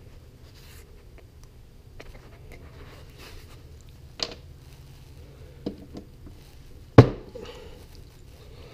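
Scattered small clicks and taps of cut cotter pins and a screwdriver on a wooden workbench as a pin's legs are pried apart, with one sharp knock about seven seconds in, over a faint low hum.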